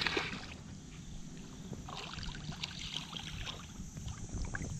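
Water sloshing, with small splashes and clicks, as someone moves in shallow creek water, over a low steady rumble.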